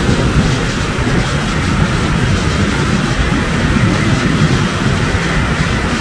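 Loud, steady rushing roar of Barachukki Falls on the Kaveri river in heavy flow, a great volume of water plunging over rock.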